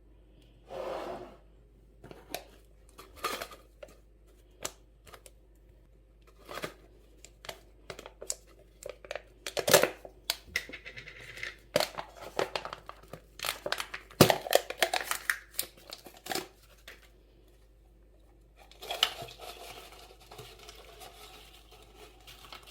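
Kitchen handling sounds: irregular sharp taps and knocks, busiest in the middle, with crinkling and rustling of packaging near the end.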